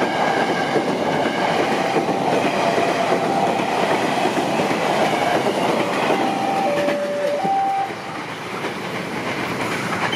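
Electric commuter train (KRL EMU) running past close by, a dense rolling rumble with wheels clacking over the rail joints. About six seconds in, a train horn sounds in two alternating tones, high-low-high, and the running noise drops a little after it.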